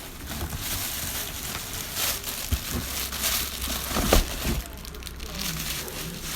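Parcel packaging crinkling and rustling as it is handled and torn open, with a sharper knock about four seconds in.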